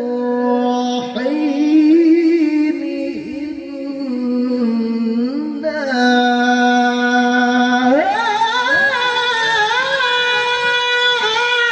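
A man's voice through a microphone reciting the Quran in melodic tilawah style, holding long drawn-out notes. About eight seconds in it climbs to a higher pitch and sings a long phrase with a wavering vibrato.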